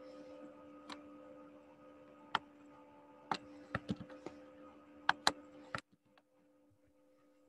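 Scattered sharp clicks from someone working at a computer, about nine in five seconds at an uneven pace, over a steady electrical hum picked up by an open call microphone. About six seconds in, the clicks and most of the hum cut off abruptly, leaving only a fainter hum.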